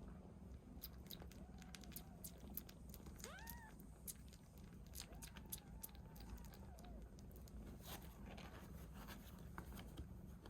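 Young kittens mewing faintly: a few thin, high calls, one rising sharply about three seconds in, then a short run of them. Scattered soft clicks and ticks are heard throughout.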